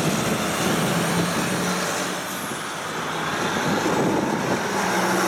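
Diesel semi-trailer container truck driving off, with engine and tyre noise that fades for a moment. The traffic noise then builds again from about four seconds in as another vehicle comes close.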